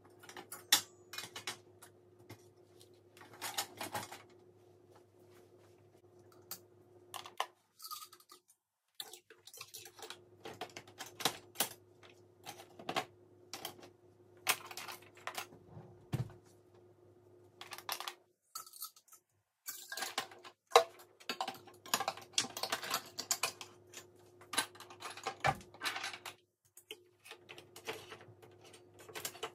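Irregular clatter and clinks of dishes, utensils and other kitchen items being handled and set down during kitchen cleaning, over a steady low hum that cuts out and comes back a few times.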